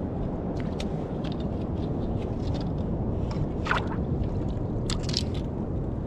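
Steady low wind rumble on the microphone, with scattered small water splashes, clicks and scrapes as a metal hook and hands probe a rock crevice in a shallow tide pool.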